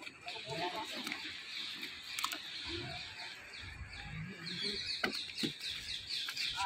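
A small bird chirping in quick repeated series of short, falling calls, several a second, with a couple of sharp knocks about five seconds in.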